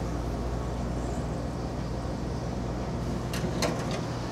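Battered calamari frying in a commercial deep fryer, the oil bubbling, over a steady low hum of kitchen machinery. Two short sharp clicks about three and a half seconds in.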